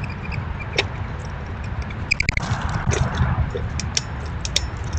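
Black squirrel clambering on a hanging tube bird feeder: scattered scrapes and sharp clicks of its claws on the feeder, busiest in the middle and second half. A steady low rumble runs underneath.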